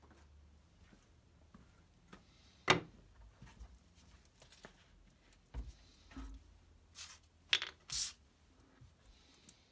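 Tools and objects being handled and set down on a wooden workbench. There is one sharp knock nearly three seconds in, then scattered softer knocks and clicks, with a few short scraping, rustling sounds near the end.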